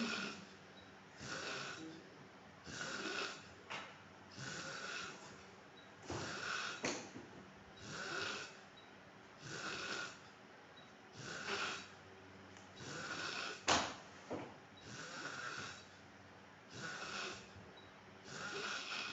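A man snoring in his sleep, each snore a rasping breath repeating about every one and a half to two seconds. A sharp click cuts in about fourteen seconds in, with fainter clicks earlier.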